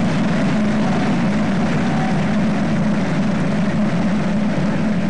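A large audience applauding, a dense and steady clapping.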